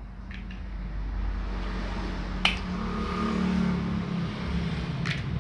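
Large plastic building blocks clicking and knocking together as a small child handles them: three sharp clicks, the loudest about halfway. Underneath, a steady low motor drone that swells in the middle.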